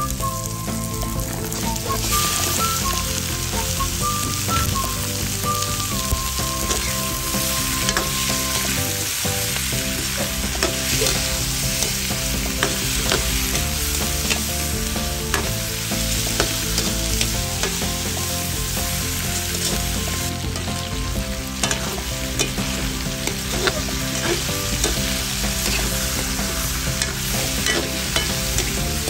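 Chicken pieces frying and sizzling in a hot wok with onion and garlic, the sizzle getting louder about two seconds in. A metal spatula scrapes and clicks against the pan as the chicken is turned and rendered.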